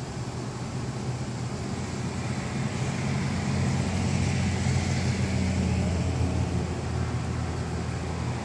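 Low diesel engine rumble of a heavy semi tractor pulling an oversize load, swelling about three seconds in and easing near the end, over general road noise.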